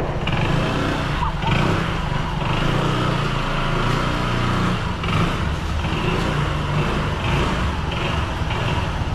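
A motor vehicle running steadily, a low engine hum with road noise.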